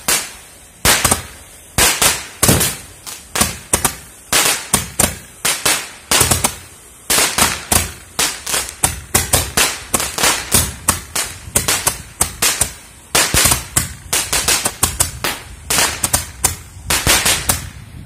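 Handheld Roman-candle-type firework tubes firing together: a rapid, irregular string of sharp pops and bangs, several a second, that does not let up.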